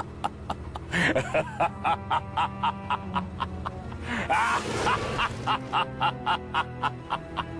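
A short music sound-effect clip with held tones over a steady beat of sharp percussive hits, about three a second.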